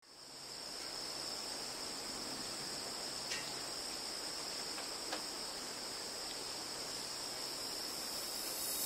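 Steady high-pitched drone of insects over a faint hiss, fading in at the start, with two faint ticks around the middle.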